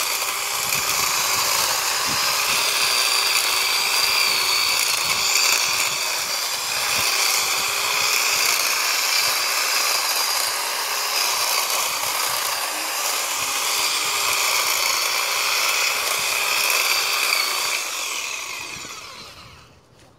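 Black & Decker 16-inch corded electric hedge trimmer running, its steady high motor whine and reciprocating blades cutting through brush and vines. It winds down and stops near the end.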